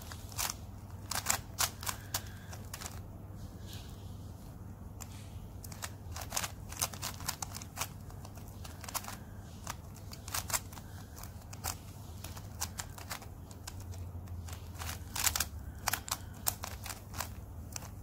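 Plastic layers of a shape-modded 3×3 puzzle cube being turned by hand: irregular quick clicks and clacks in bursts of several turns, with short pauses between them, over a low steady hum.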